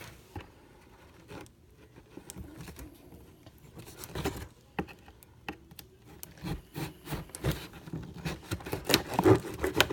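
A large knife cutting and scraping through a cardboard box, with rubbing and handling clicks. The noises are sparse at first and become louder and more frequent in the second half.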